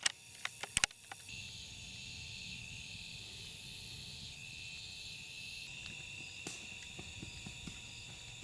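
A few sharp metallic clicks in the first second as a scoped bolt-action rifle is handled at the bolt, then a steady, high-pitched chorus of evening insects.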